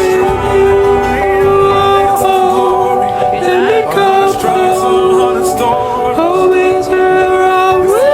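A folk-pop song playing, with long held notes over the accompaniment and no clear words.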